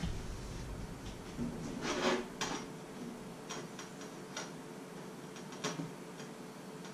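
Scattered small clicks and knocks from someone moving about a kitchen and handling a frying pan on the hob, with a brief rustling burst about two seconds in, over a faint steady hum.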